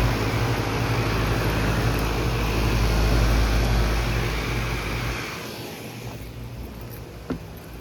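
2012 Goodman GSX13 air-conditioner condensing unit running: a steady low hum under a rushing air noise. About five seconds in, the hum and rush die down, leaving a much quieter hum.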